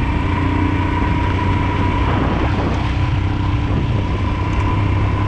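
Royal Enfield Himalayan's 411 cc single-cylinder engine running steadily while riding, with wind rush and tyre noise on a wet, rough gravel road.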